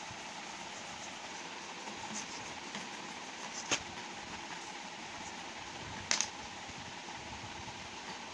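Crayon rubbing on paper as the moon is coloured yellow, over a steady background hiss, with two short sharp ticks about four and six seconds in.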